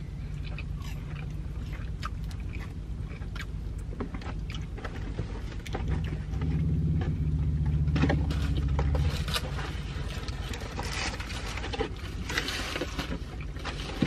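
Steady low hum of a car, with a louder low rumble from about six to nine seconds in. A paper takeout bag and food wrappers rustle and crinkle over it, most in the last few seconds.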